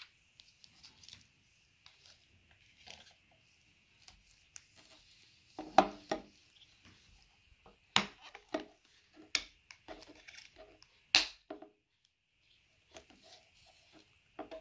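Irregular clicks and knocks of a Tapetool hand tying machine being handled on a wooden table: its green plastic tape-reel case is swung open and the steel stapler body set against it, with the sharpest knocks about six, eight, nine and eleven seconds in.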